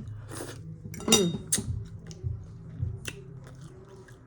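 Close-up eating sounds from a meal of mussels and shrimp: sharp clinks and clicks of utensils or shells against a dish, the loudest about a second in, with a few smaller clicks after it.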